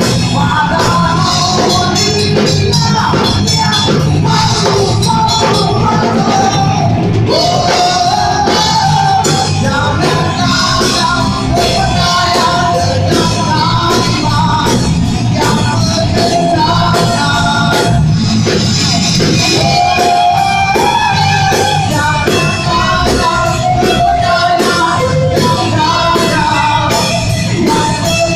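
Rock band playing live: a singer over drums and electric guitars.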